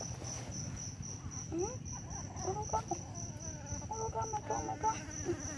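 Insect chirping steadily: a high, evenly pulsed trill at about four to five chirps a second, typical of a cricket. A few short pitched calls sound over it from about one and a half seconds in.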